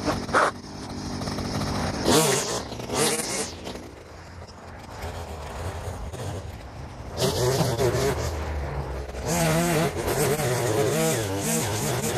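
Gas string trimmer (weed eater) engine revving up and down as it cuts thick grass and weeds. It eases off to a low idle for a few seconds around the middle, then revs up again.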